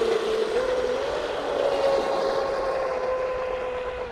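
Traxxas M41 RC speed boat's brushless motor whining under throttle on a 4S battery. Its pitch climbs about a second in as the throttle is opened further, then holds and slowly sinks as the boat runs away across the water.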